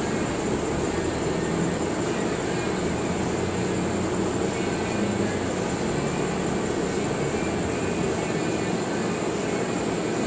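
A steady, unbroken mechanical drone with no change in level, the constant running noise of a machine in the workshop.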